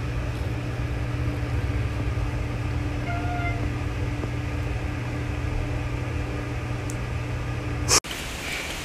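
A steady low mechanical hum with a fainter tone above it. About three seconds in comes a brief faint high-pitched squeak, and the hum cuts off with a sharp click near the end.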